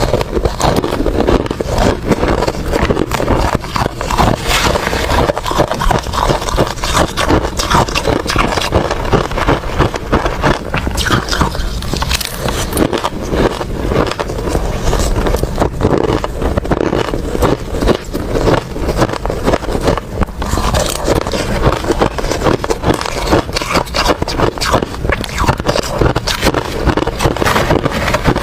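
Close-miked crunching and chewing of ice: a steady, dense run of irregular sharp cracks and crunches as the ice is bitten and ground between the teeth.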